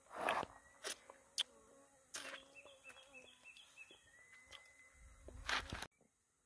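An insect buzzing in a faint wavering drone, amid several sharp rustles and knocks. Everything stops abruptly near the end.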